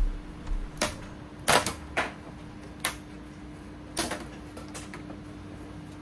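Sharp plastic clicks and knocks at irregular intervals, about eight in all with a close pair the loudest, as the plastic rear cover of a Lenovo IdeaCentre 510s all-in-one PC is unclipped and lifted off.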